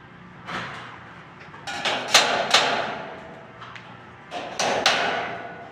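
Sharp metallic knocks and clanks from steel stud framing being worked overhead: one knock early, then two clusters of loud strikes with a short ringing after each.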